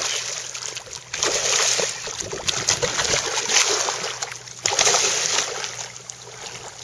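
Northern pike thrashing at the surface of shallow water, splashing in repeated bursts.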